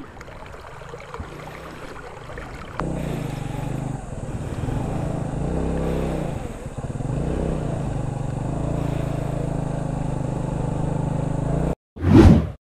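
A vehicle engine starts running about three seconds in and keeps running steadily, its pitch rising and falling a little. It cuts off abruptly, and a short louder sound follows.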